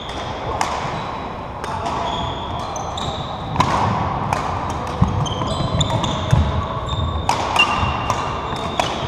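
A badminton rally: a shuttlecock struck back and forth by rackets in sharp cracks about every second or so, with sneaker squeaks and footfalls on the wooden court floor, echoing in a large sports hall.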